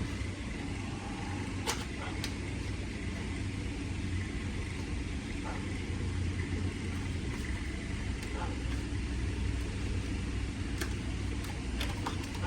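Steady low rumble with a few faint, scattered clicks of a plastic blister pack being handled and opened.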